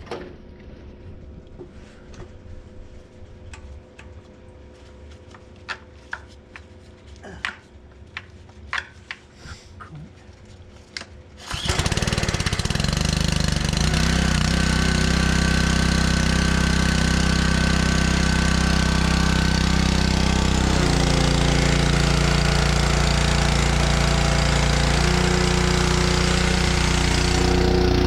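A few scattered clicks and knocks, then an engine starts suddenly about twelve seconds in and runs steadily, its note shifting a couple of times.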